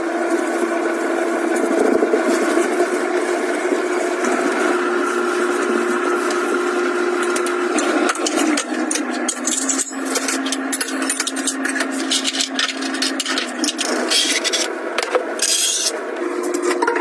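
A sponge scrubs cleaning foam across a black glass gas hob, a continuous rubbing scrape over a steady hum. About eight seconds in it gives way to scattered clicks and knocks of kitchen items being handled.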